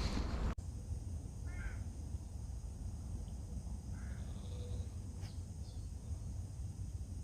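Wind buffeting the microphone that cuts off about half a second in, then quiet open-air ambience with a distant crow cawing twice.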